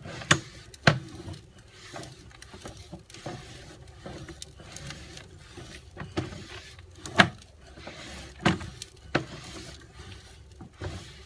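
Irregular knocks and clicks from the sewer camera's push cable and reel being worked, about six sharp ones scattered over a low steady background, the loudest a little past the middle.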